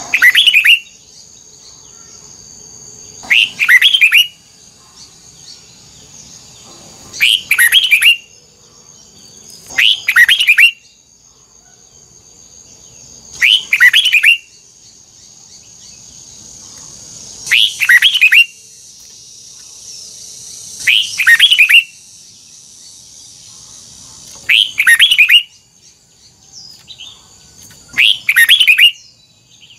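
Red-whiskered bulbul singing short, loud phrases of quick double notes, repeated about every three to four seconds, over a faint steady high-pitched hum.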